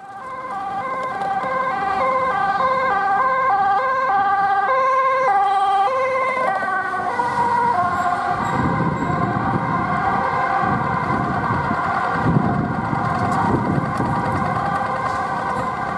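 Dutch ambulance's two-tone siren, alternating quickly between a high and a low note. About eight seconds in the ambulance passes close, its siren notes blurring and joined by engine and tyre noise.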